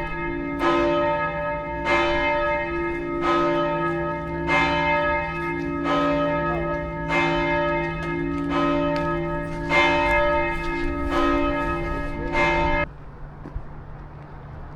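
Church bell tolling at a steady pace, a strike about every 1.3 seconds, each one ringing on into the next; the tolling cuts off abruptly near the end.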